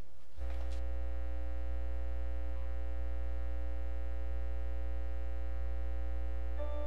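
Church organ holding one long chord over a deep pedal bass, entering about half a second in; near the end further notes begin to move.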